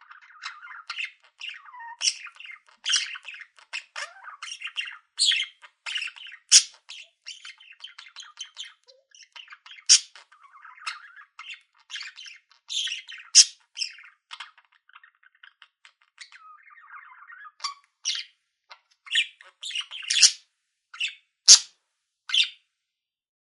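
Budgerigar chirping and chattering: a fast, irregular run of short, sharp high chirps over a softer warbling chatter.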